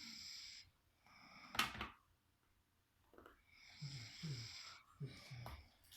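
Snoring: a series of rasping breaths, with a loud sharp snort about a second and a half in and several short, low, falling snores later on.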